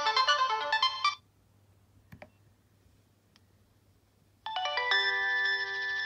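Nokia 3220 polyphonic ringtone playing a quick electronic melody that stops about a second in. After a faint click, another ringtone begins about four and a half seconds in with long, ringing chime notes.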